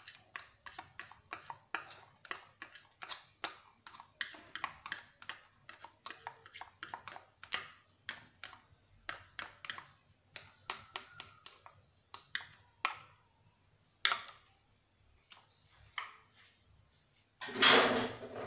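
Metal spoon clinking quickly and unevenly against a plastic measuring cup while stirring a liquid mixture. The clinking thins out after about two-thirds of the way through, and a louder clatter comes near the end.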